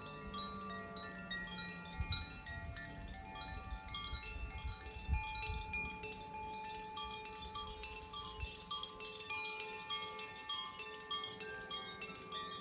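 Hand-held tuned wind chimes (Koshi and Irohana chimes) played by tilting and turning them, many small strikes setting off overlapping, long-ringing tones. Low rumbling thuds come and go from about two to eight seconds in, the loudest about five seconds in.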